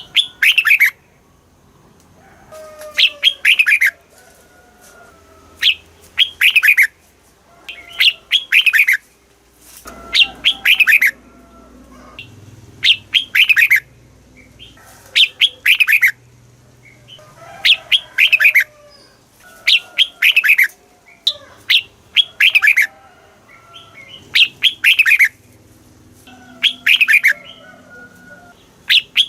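Red-whiskered bulbul singing: short, loud chirpy phrases, each dropping in pitch, repeated about every two seconds.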